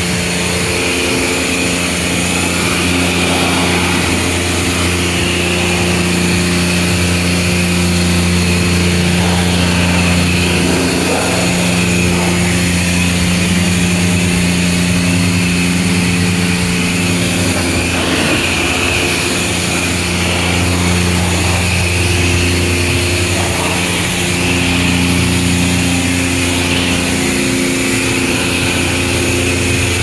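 Self-serve car wash high-pressure wand spraying, over the steady hum of the wash pump; the hum shifts pitch slightly a couple of times.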